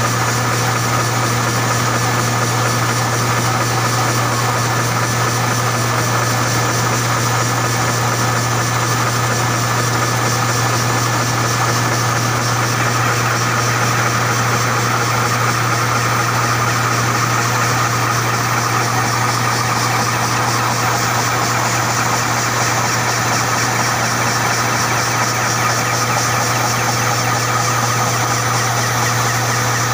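Diaper-making production line running steadily: a continuous low machine hum with a dense, fast mechanical rattle and a few steady whining tones above it.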